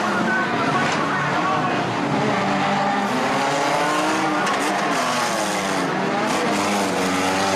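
Several old banger cars' engines running and revving together, their pitches rising and falling across one another, with a few brief knocks around the middle.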